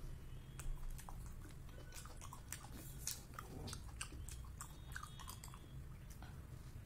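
Close-miked biting and chewing of a soft grape soboro bun topped with whipped cream, full of short wet mouth clicks and smacks. The loudest click comes just under a second in.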